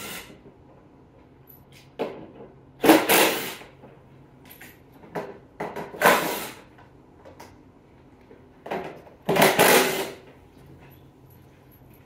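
Cordless impact gun running in three short bursts, about 3 s and 6 s in and a longer one near 9 to 10 s, backing fasteners out of a snowmobile's front bodywork. Small clicks and clinks of handling come between the bursts.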